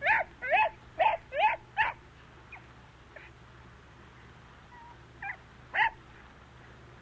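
An animal giving short, squeaky, pitched calls in quick succession, about three a second for the first two seconds, then two more calls about five seconds in.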